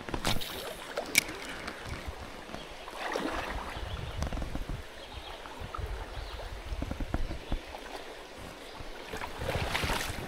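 Shallow creek water running over rocks, with wind rumbling on the microphone. A couple of sharp clicks in the first second or so, and louder rushes of water noise about three seconds in and near the end.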